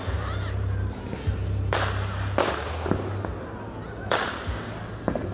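Fireworks going off: three sharp bangs over a few seconds, the first two close together, over a steady low hum.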